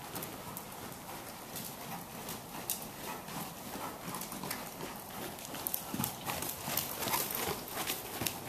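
Hoofbeats of a Westphalian mare trotting on dirt arena footing, a steady run of strikes. They grow louder in the second half as the horse comes close.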